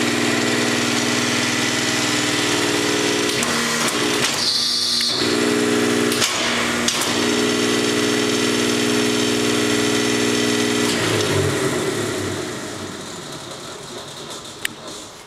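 Hydraulic power unit of a Pines No. 2 tube bender running with a steady hum, breaking off briefly twice, with a short high hiss about four seconds in. The hum stops about eleven seconds in and the sound dies away, with a sharp click near the end.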